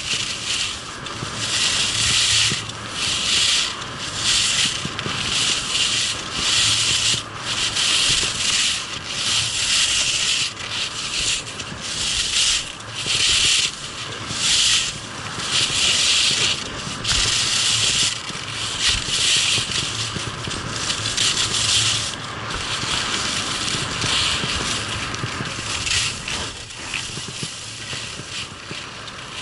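Skis scraping and carving over packed snow in linked turns, a loud hissing scrape that swells and fades about once every second or so with each turn.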